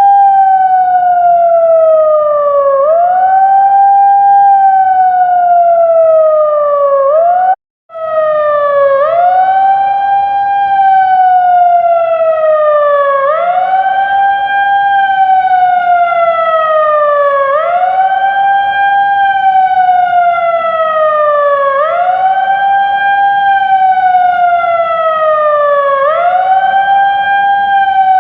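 TOA siren sounding a wail: a loud tone that sweeps up quickly and slides slowly back down, repeating about every two seconds. It breaks off for about half a second about eight seconds in, then carries on with the same cycle.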